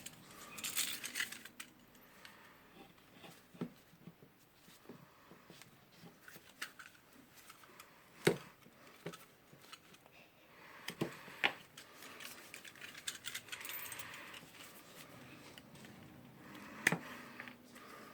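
Scattered light clicks and short scrapes of hand tools on a workbench as the cut end of the power cord is cleaned and stripped.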